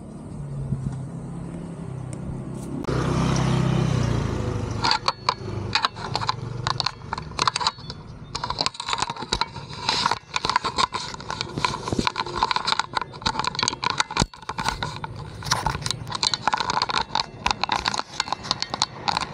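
Yamaha YZF-R1's inline-four engine running low and steady, then swelling louder about three seconds in. From about five seconds on, a dense, irregular crackling and scraping noise dominates.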